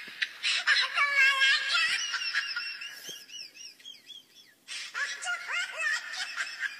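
High-pitched comic laughter sound effect in two stretches, with a short lull around the middle.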